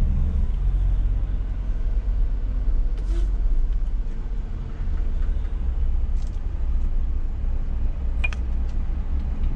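Scania S500 truck's diesel engine running with a steady low rumble.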